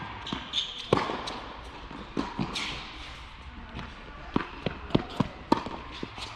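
Tennis rally on an indoor hard court: sharp pops of the ball coming off the racquets and bouncing on the court, the loudest hit about a second in and a quick run of hits and bounces in the second half, in a large indoor tennis hall.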